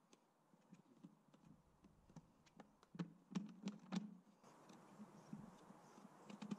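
Faint, scattered clicks and taps of a screwdriver working the screws out of a motorcycle airbox cover plate, with a few louder clicks about three to four seconds in.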